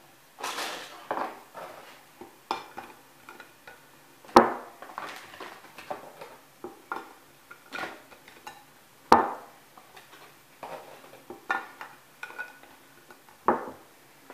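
Clinks and knocks of a glass dish and plastic containers being handled on a wooden worktop while savoiardi biscuits are dipped in coffee and laid in, with two sharper knocks about four and nine seconds in.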